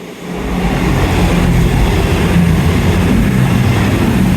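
A train running straight through the station without stopping. Its noise builds up quickly in the first half second, then holds loud and steady with a low hum and rumble.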